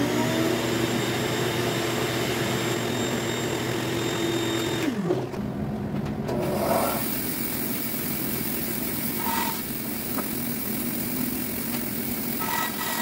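An electric motor spins up with a rising whine, runs steadily and winds down about five seconds in. A bandsaw then runs with its blade cutting along a jatoba hardwood board.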